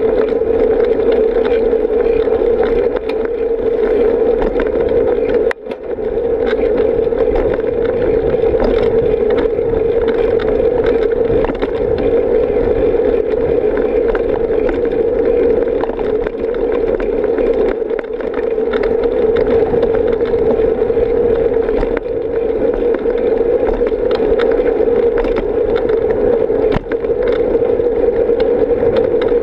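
Steady muffled rush of wind and road noise on a bicycle-mounted camera's microphone while riding along a paved path, with a brief dip about six seconds in.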